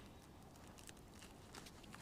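Near silence: faint background with a few soft, scattered ticks.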